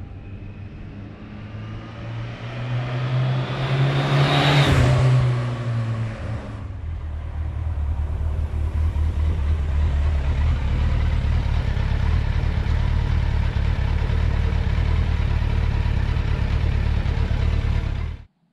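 2005 Suzuki GSX1300R Hayabusa's inline-four engine coming past close by, rising to a loud peak about four seconds in with a sudden drop in pitch as it passes. It then runs steadily at low revs until the sound cuts off abruptly near the end.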